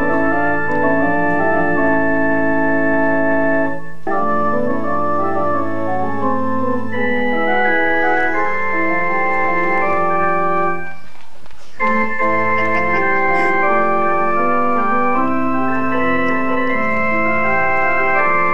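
Organ playing slow, sustained chords, with two short breaks between phrases, about four seconds in and again near the middle.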